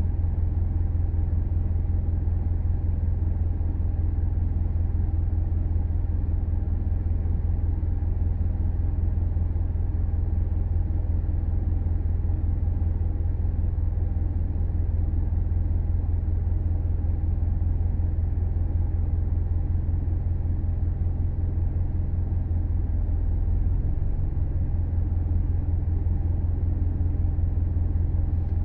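Subaru Levorg on the move: a steady low rumble with no change in pitch or level, the noise recorded as an abnormal sound while driving.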